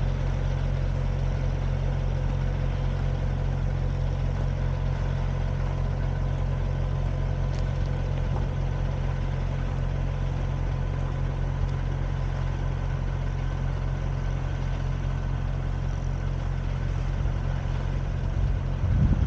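Vehicle engine running steadily at even, unchanging revs, a low hum with faint steady higher tones over it. Wind begins to buffet the microphone near the end.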